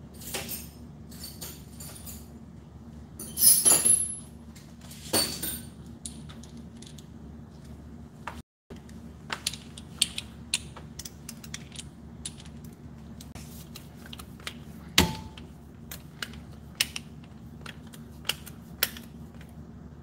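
Small metal parts and hand tools clinking and clattering while being handled on a workbench. There is a louder ringing clatter a few seconds in and a single sharp metallic knock about fifteen seconds in, over a steady low hum.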